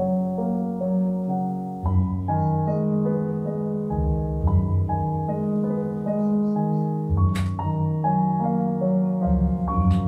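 Slow, gentle instrumental background music: sustained keyboard chords changing about once a second over a soft low bass line, with a brief hiss about seven seconds in.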